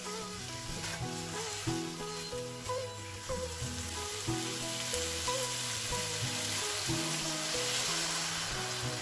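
Chicken and spiced onion masala sizzling in a hot nonstick frying pan while being stirred with a spatula, over background music. The sizzle grows stronger in the second half, and near the end water is poured into the pan.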